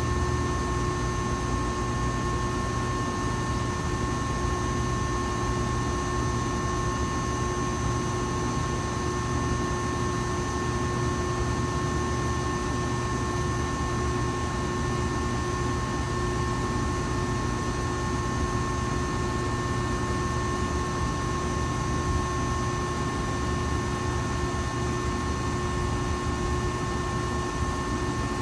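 Cooling fans blowing over the steady electrical hum of power equipment, possibly a transformer: an even rush of noise with several steady tones held above it.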